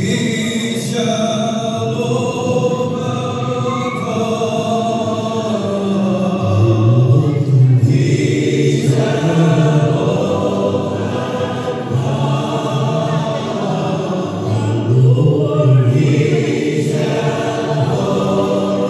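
A choir singing a song, with a strong low-voiced part underneath, played as a recording.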